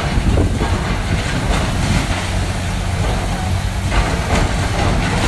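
Heavy diesel demolition machinery running steadily with a low engine drone, with scattered knocks and crunches of a building being broken up.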